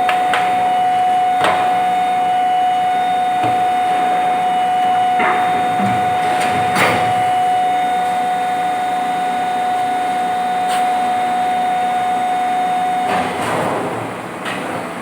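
Plastic injection moulding machine running, with a steady high tone that stops near the end and a few sharp metallic knocks.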